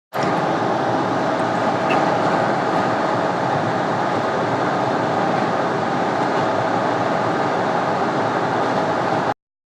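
Steady running noise of a train, a constant rumble with a faint steady whine. It starts abruptly and cuts off suddenly near the end.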